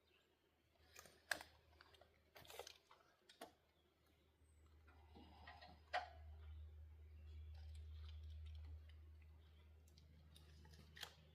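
Near silence with a few faint, scattered clicks and knocks over a low hum that swells in the middle.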